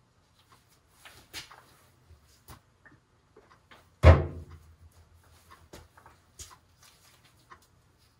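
Metal engine parts being handled on a steel cart: scattered light clicks and taps, and one loud metallic clank about four seconds in that rings briefly.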